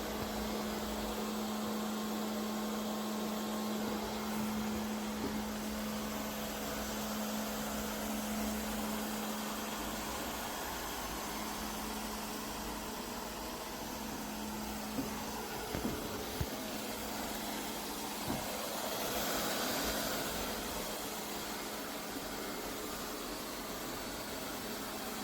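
LEFANT M310 robot vacuum running, a steady hiss from its suction fan with a low hum that stops a little past halfway. A few light clicks come past the middle.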